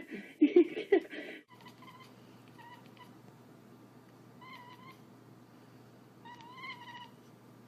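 A domestic cat meowing: four or five short, high meows spread over several seconds, over a faint steady hum.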